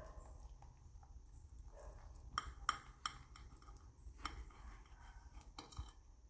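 Kitchen knife cutting into a firm gelatin mold, with several faint sharp clicks as the blade touches the glass plate beneath.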